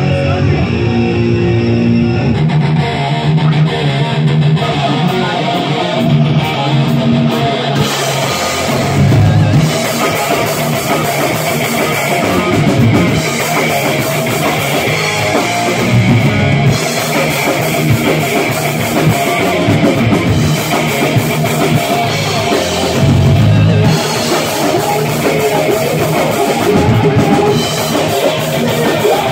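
Live heavy metal band playing loud: electric guitars alone at first, then the drum kit with cymbals comes in about eight seconds in and the full band plays on.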